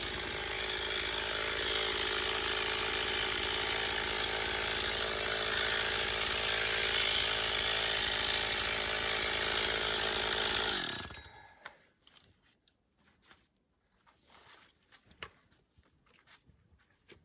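Chainsaw engine running steadily, then switched off about eleven seconds in, its sound winding down and dying away. Faint scattered ticks follow.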